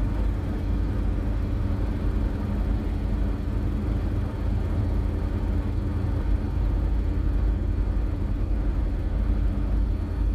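Steady low rumble of a car driving on a highway, the road and engine noise heard from inside the cabin.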